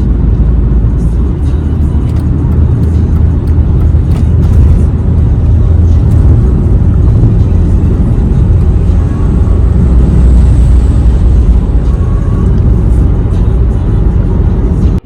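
Steady, loud low rumble of a car driving at highway speed: road and wind noise in the cabin of a BMW E46 318i, with the microphone picking up heavy low-pitched noise.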